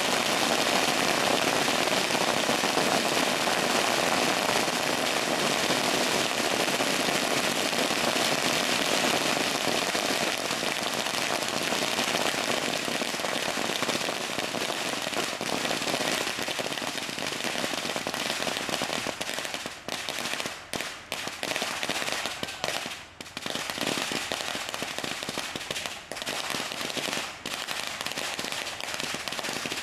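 Firecrackers hung on a wooden rack going off in a dense, continuous crackle. The crackle eases off over the second half and breaks into short gaps in the last ten seconds.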